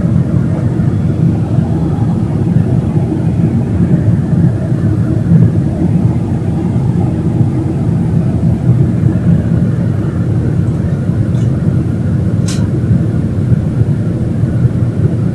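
Jet airliner cabin noise during the climb after takeoff: engines and rushing air heard from inside the cabin as a low, steady drone. A single sharp click comes about twelve seconds in.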